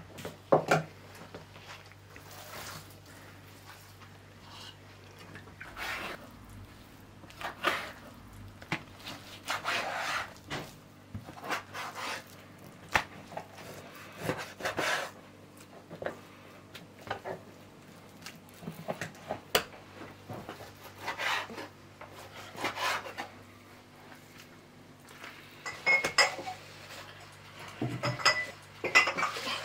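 Kitchen food-preparation sounds: scattered knocks and clatter of a cleaver and utensils on a table and board, over a faint low hum. Near the end, empty glass jars clink together with a ringing tone.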